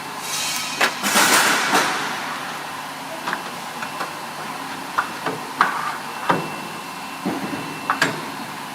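Aluminium-profile end milling machine running with a steady hum: a burst of hissing cutting noise about a second in, then scattered sharp knocks and clanks as the workpiece and clamps are handled.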